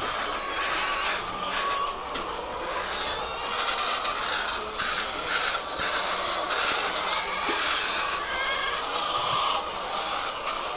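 A flock of laying hens calling and clucking all at once, a dense continuous din of overlapping bird calls.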